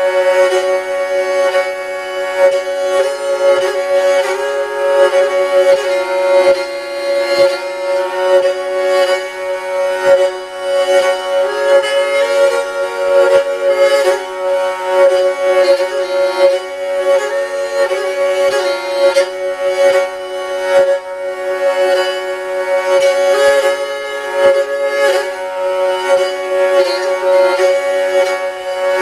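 Jouhikko, a bowed lyre with horsehair strings, played continuously with a bow. A steady drone note is held under a melody that steps up and down, stopped on the string by the backs of the player's fingers.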